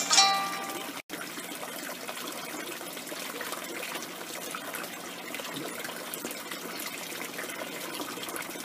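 Water trickling and splashing steadily in a painted-PVC hydroponic grow tower, with a brief silent gap about a second in.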